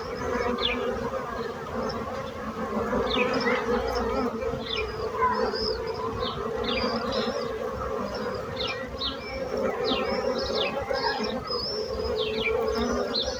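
Bees buzzing in a steady, dense drone, with short high chirps repeating over it.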